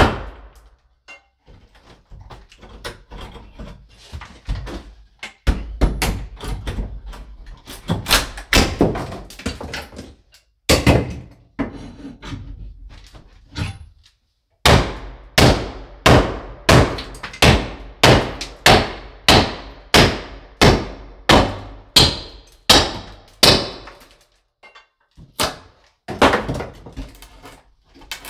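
Hammer blows on wooden wall framing as a stud and cross member are knocked loose: runs of sharp strikes about one or two a second, with short pauses between runs.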